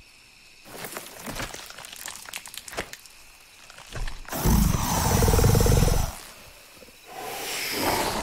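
Movie monster sound effect. A few seconds of sharp crackling clicks, then a loud, deep roar lasting more than a second, and a second growl building near the end.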